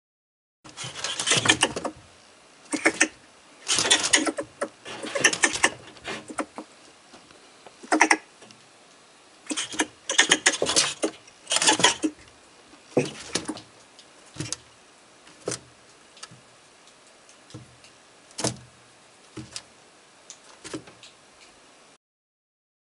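Marten calling: a long run of harsh, unpitched, hissing-chattering bursts coming irregularly, some nearly a second long and some short. The loudest bursts fall in the first half, and they grow shorter and weaker towards the end.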